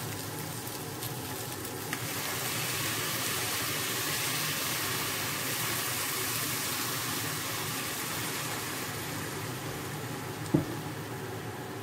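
Chicken feet sizzling in a hot pot. The sizzle grows louder about two seconds in as soy sauce is poured onto them, then eases off. A single sharp knock comes near the end.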